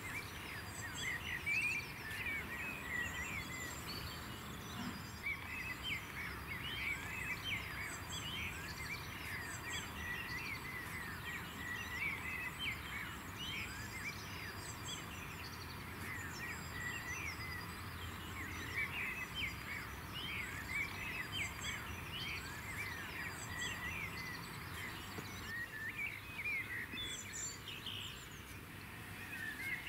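Many small birds chirping and twittering together: a dense, continuous chorus of short high calls over low steady background noise.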